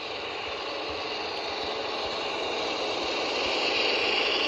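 HO scale model train, a PIKO Southern Pacific Krauss-Maffei ML4000 diesel pulling a string of freight cars, rolling past on the track: a steady running noise of wheels on rail that grows louder as the cars pass closest.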